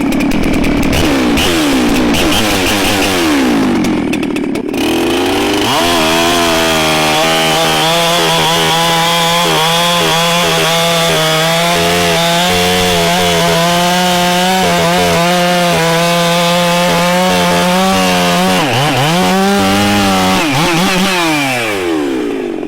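Ported Husqvarna 372 two-stroke chainsaw at high revs cutting hardwood. The engine note shifts in pitch for the first few seconds, then holds steady under load in the cut for over ten seconds, dips and recovers near the end.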